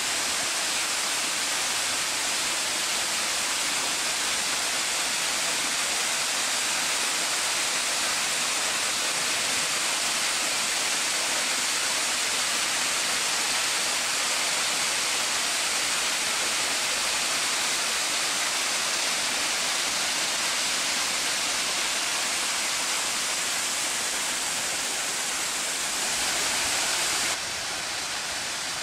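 Small stepped stone waterfall pouring into a pond: a steady, even rush of falling water, a little quieter near the end.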